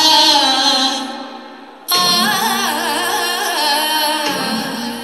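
Recorded song for a Malayalam semi-classical dance: an ornamented vocal line over steady held notes. One phrase fades out about a second and a half in, and a new sung phrase starts about two seconds in.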